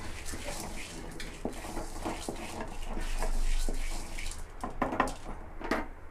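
Wooden spatula stirring and scraping lentils (chana, toor and urad dal) as they dry-roast in an aluminium pot, the grains rattling against the metal in irregular clicks and scrapes, with a few sharper knocks about five seconds in.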